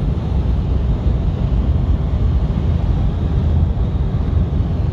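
Steady low rumble of road and engine noise inside a moving vehicle's cab.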